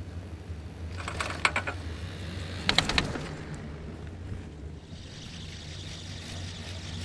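Chairlift chair passing a lift tower: the grip rattles over the tower's rope sheaves in two clusters of rapid clicks, about a second and three seconds in, over a steady low hum.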